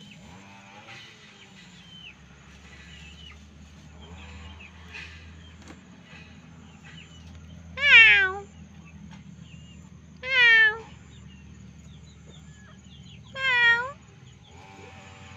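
A cat meowing three times, starting about halfway through, each meow short and loud, two to three seconds apart.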